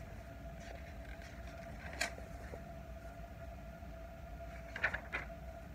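Quiet room tone with a steady faint hum, broken by a single soft click about two seconds in and a couple of faint knocks near the end, typical of a picture book being handled and lowered.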